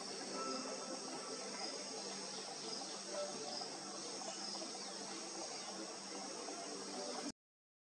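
Steady chorus of field insects chirring, with no barks or other distinct sounds standing out, cutting off suddenly about seven seconds in.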